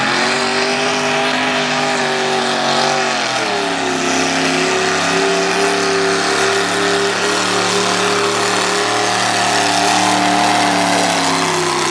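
Big-block Chevrolet V8 of a modified pulling tractor running hard under load through a pull. Engine pitch is high and steady at first, drops about three and a half seconds in, then holds steady with a small rise and falls again near the end.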